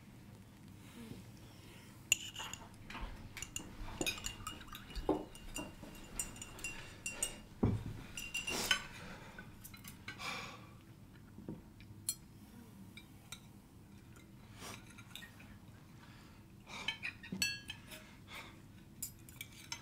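Cutlery and dishes clinking during a meal at a table: scattered light clinks of forks on plates and glassware, a few ringing briefly. They come thickest in the first half and again near the end.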